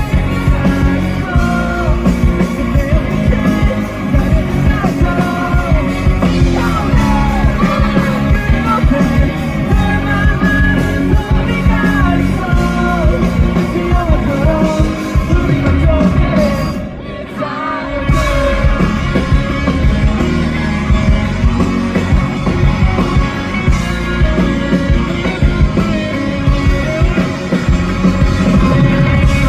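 A rock band playing live with a lead vocalist singing over guitars, bass and drums. The band cuts out briefly about 17 seconds in, then comes back in at full strength.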